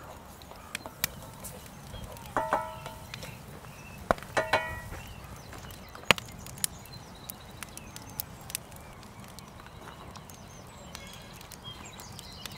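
Wood campfire crackling, with irregular sharp pops and clicks throughout; the loudest pop comes about six seconds in. Two short pitched calls, each under half a second, come about two and a half and four and a half seconds in.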